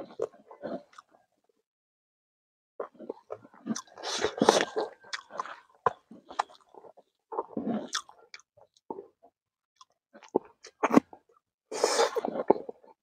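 A man chewing a mouthful of rice and frog curry, with wet smacking and clicking mouth sounds in short bursts and pauses between them, along with his fingers mixing the rice on the metal plate.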